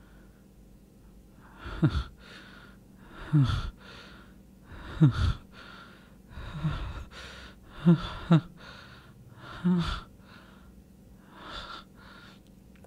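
A man's heavy, gasping breaths, one about every second and a half, each sliding down in pitch.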